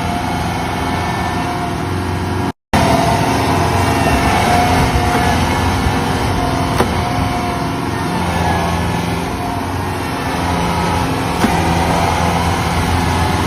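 Kubota DC93 combine rice harvester's diesel engine running steadily under load, with a slight waver in pitch. The sound cuts out for a moment about two and a half seconds in.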